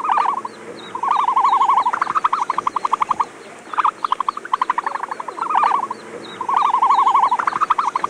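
An animal call recording, offered as the ostrich's sound, plays a series of fast rattling trills, six or seven in a row with short pauses between them. Faint high chirps repeat about twice a second behind it.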